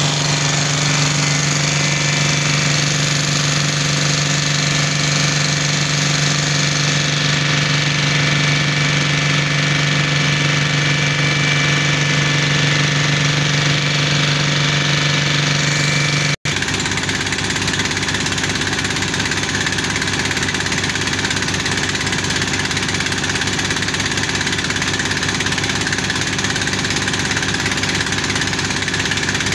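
Engine of a portable borehole drilling rig running steadily under load while drilling a water well. The tone changes abruptly about sixteen seconds in, then holds steady again.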